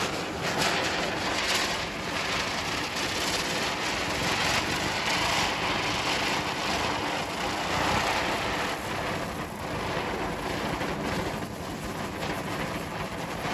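Chakri (ground spinner firework) burning, a steady hiss as it spins and sprays sparks.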